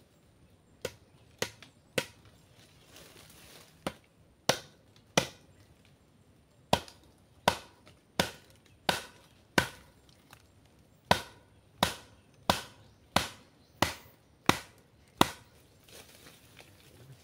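Repeated chopping blows into wood, about eighteen sharp strokes in runs of three to six, roughly one every 0.7 s, with short pauses between runs.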